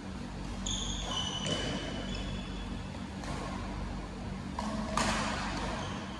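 Sports shoes squeaking on a badminton court floor, with a few sharp knocks from racket and shuttlecock, the loudest about five seconds in, over the steady hum of a large hall.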